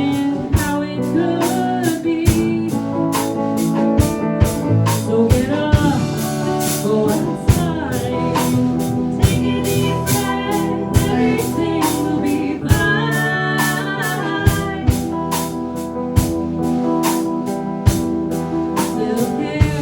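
A band playing live: a drum kit keeping a steady beat under guitar, with a voice singing at times.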